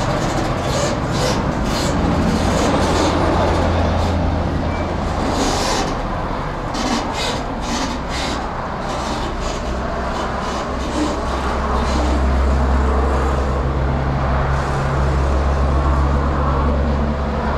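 Heavy diesel truck engine running as a car-transporter truck moves slowly across the lot: a low, steady drone that drops in pitch and grows louder about ten seconds in.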